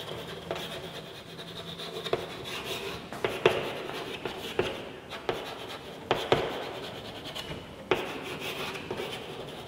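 Chalk writing on a chalkboard: a steady scratching of the strokes, broken by frequent sharp taps as the chalk strikes the board.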